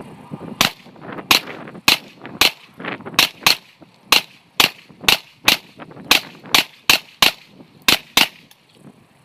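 Gunfire: a rapid string of about sixteen shots, roughly two a second, that then stops.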